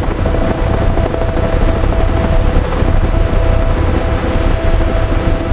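Heavy vehicle engines running in a steady, deep drone, with a constant hum riding on top.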